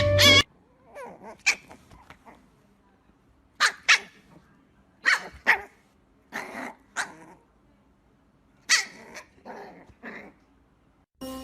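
A dog barking in short barks, about ten of them in groups of two or three with pauses between. Music breaks off just after the start and comes back near the end.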